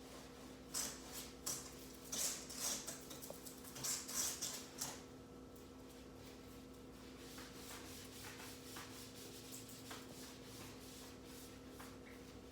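Wiping a laptop keyboard dry by hand: a run of brisk rubbing strokes over its first five seconds, then lighter, fainter rubbing.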